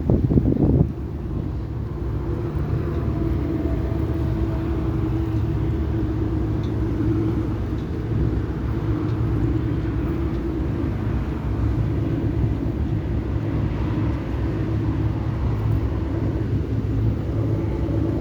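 A steady low engine rumble with a held hum in it, and wind buffeting the microphone for about the first second.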